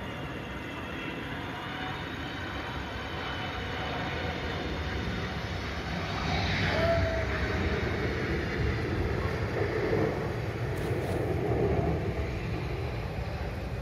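Boeing 777's twin jet engines on final approach, passing low overhead: a whine that grows steadily louder, a falling pitch as it passes about six seconds in, then a steady low rumble as it heads away toward the runway.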